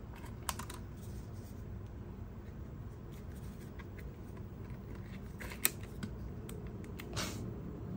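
Sony A7R V camera body being handled while a battery goes into its base, with a few light plastic clicks from the battery compartment door. The sharpest click comes a little past halfway and a short rustle near the end, over a steady low hum.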